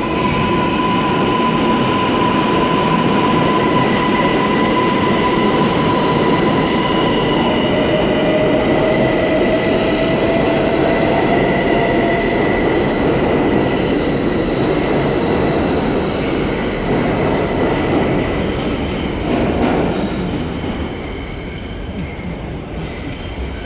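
New York City subway train pulling out of the station: a loud rumble of wheels and running gear with the steady whine of its motors, one tone climbing slowly as the train speeds up. The sound drops away about twenty seconds in as the train clears the platform.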